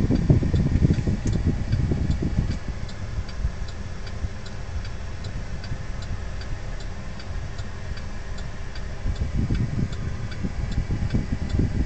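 Turn-signal indicator ticking at an even pace over the low, steady idle of a 2009 Saturn Aura's 2.4-litre Ecotec four-cylinder with the AC running. The low rumble is heavier for the first couple of seconds and again near the end.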